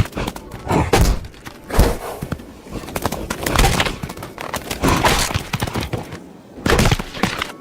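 Bighorn sheep rams clashing horns: a series of loud, sharp cracks about one to two seconds apart.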